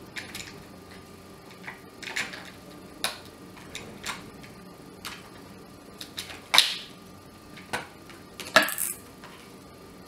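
The plastic top cover of an Orpat OEI-177 dry iron being pressed and fitted onto the iron's body: a scattered series of light plastic clicks, taps and scrapes, the loudest two about six and a half and eight and a half seconds in.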